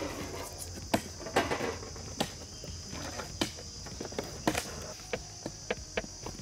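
Knife scraping over a red pomfret and knocking against the metal tray beneath it as the fish is cleaned: scattered sharp clicks with a couple of short scrapes early, then a run of quick, evenly spaced clicks near the end. A steady high insect chirr sounds throughout.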